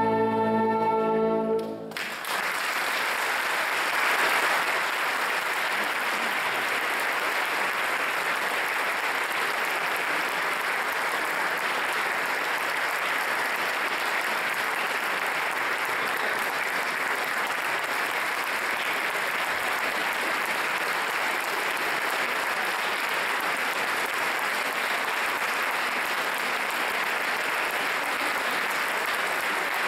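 A wind band holds a final sustained chord that cuts off about two seconds in, and an audience breaks into steady applause that carries on.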